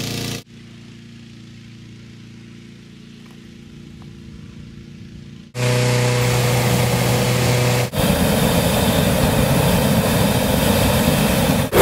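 Engine-driven balloon inflator fan running steadily, quieter for the first few seconds and louder from about halfway in. In the last few seconds a hot-air balloon's propane burner fires with a loud, steady rushing noise as the envelope is heated.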